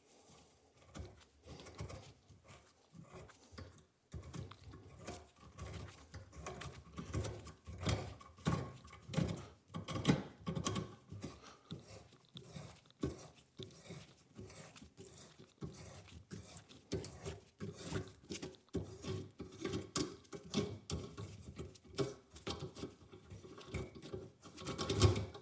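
Irregular crunching and scraping clicks of a hand reamer being turned through the steel hinge-pin bore of a Volvo 142 door hinge, cutting the hole to size.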